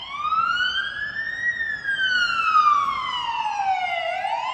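Emergency vehicle siren wailing: the pitch rises over about a second and a half, falls slowly over the next two and a half seconds, then starts to rise again near the end.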